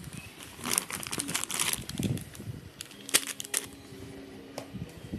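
Plastic wrapping of squishy toys crinkling and rustling as they are handled, with sharp clicks and taps. A faint steady tone runs for under two seconds near the end.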